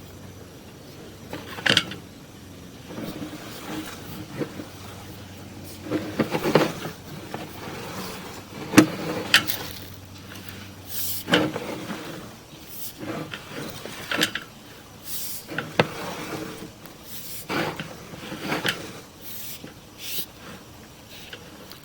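Sewer inspection camera being pushed along a drain pipe on its push cable: irregular knocks, clicks and scrapes, over a faint low hum that stops about halfway through.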